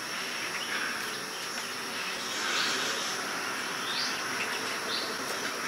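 Insects droning steadily at a high pitch, with a few short chirps, over the steady hiss of a lit gas stove burner.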